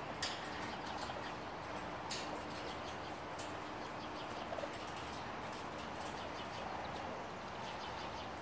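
Young raccoon kits chirping and chittering softly, with two sharp clicks, one near the start and one about two seconds in.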